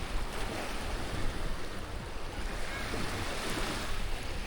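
Small Black Sea waves breaking and washing up a sandy shore in a steady wash, with some wind buffeting the microphone.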